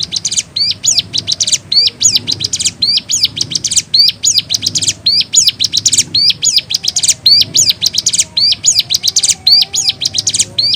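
Ciblek gunung, a prinia, singing vigorously. A high, fast song phrase repeats about once a second, each phrase starting with a rising note and followed by rapid sweeping chips.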